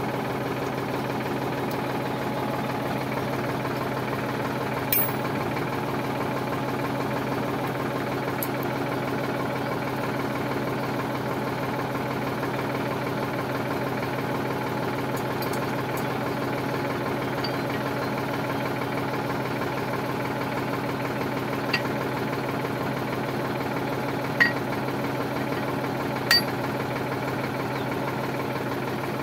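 Sonalika tractor's diesel engine idling steadily at an even, unchanging speed, with a few brief clicks over it, about four of them in the latter half.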